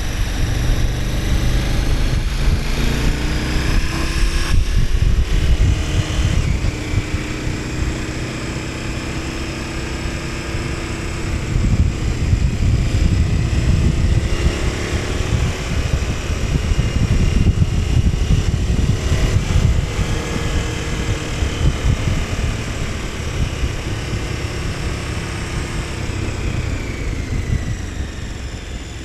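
KTM 1290 Super Adventure S's V-twin engine under way, its revs rising and falling several times as the bike accelerates and shifts. Wind rumbles on the microphone underneath.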